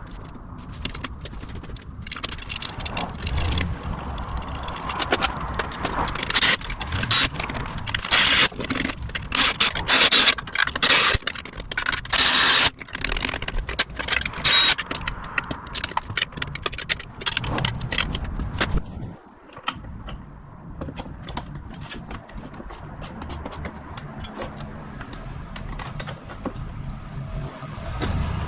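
Hand work with tools and metal parts: irregular clicks, clinks and scraping, busiest in the middle and quieter after about two-thirds of the way through.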